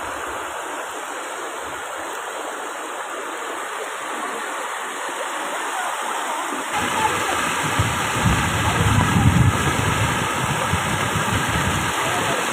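Muddy floodwater rushing and churning in a steady roar of moving water. It grows louder about seven seconds in, with a deeper low rumble added for a few seconds.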